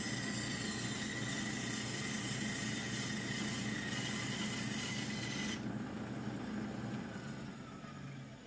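Bandsaw running and cutting through the protruding end of an axe handle and its hard maple wedge. About five and a half seconds in the cutting noise drops away as the cut finishes, and the saw runs on more quietly, fading toward the end.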